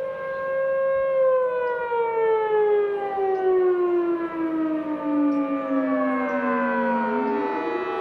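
Several outdoor storm warning sirens, among them a newly installed Federal Signal Thunderbolt, sounding at once in overlapping tones. The main tone falls slowly and steadily in pitch, and about seven seconds in another tone starts rising.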